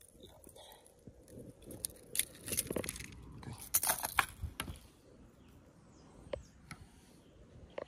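Metallic clinking and rattling from a fish lip gripper and its lanyard while a small caught peacock bass is handled. The rattles come in a burst of quick clicks between about two and five seconds in, with a few lone clicks later.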